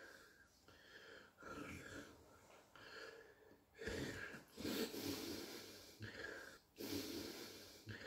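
A man snoring in his sleep through an open mouth: a run of uneven snores and snorts, roughly one a second, the strongest around the middle and near the end.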